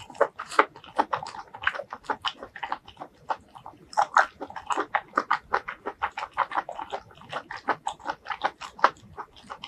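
Close-miked chewing of crunchy stir-fried vegetables: a steady run of wet crunches and mouth clicks, several a second.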